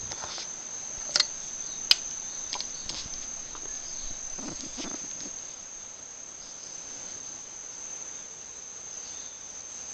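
Insects chirring in one steady, high-pitched drone. About a second in, two sharp clicks under a second apart as the monkey handles the stainless steel bowl and spoon, followed by a few softer knocks.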